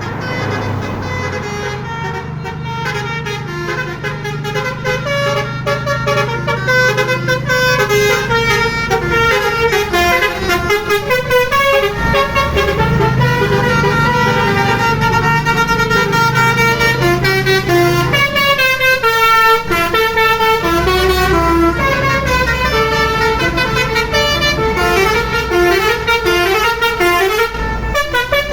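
Telolet horn of an Indonesian bus playing a fast, repeating tune of stepped notes, over the low rumble of the vehicle's engine. It grows louder over the first several seconds.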